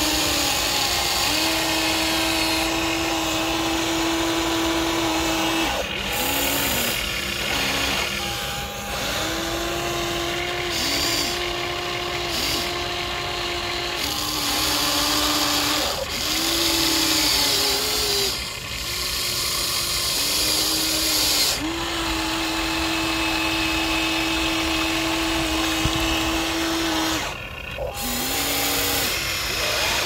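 Small electric motors of remote-control toy vehicles whining, each holding a steady pitch for a few seconds, stepping up or down and cutting out briefly now and then.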